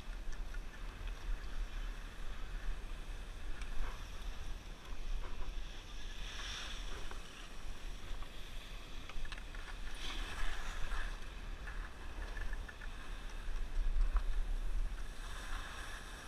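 Wind buffeting a helmet-mounted action camera's microphone on a ski slope: a steady low rumble that rises and falls, with a faint hiss above it.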